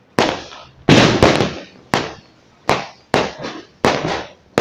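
Fireworks going off: a string of sharp bangs, about one every second or less, each with a short echoing tail, and a quick run of pops about a second in.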